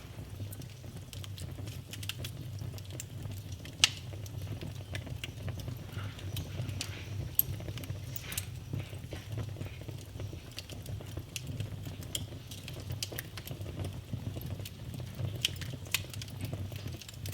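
Wood fire burning in a fireplace: a steady low rumble of the flames with many small crackles and pops, a few sharper pops standing out.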